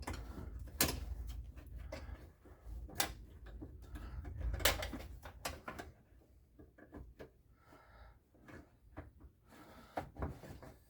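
Clicks and knocks of hard parts being handled and fitted inside a car door while a door lock actuator is set into place. Three sharper clicks come in the first five seconds; the handling goes quieter after about six seconds.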